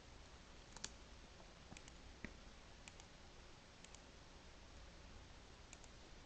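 Faint computer mouse clicks, half a dozen or so and some in quick pairs, over quiet room tone.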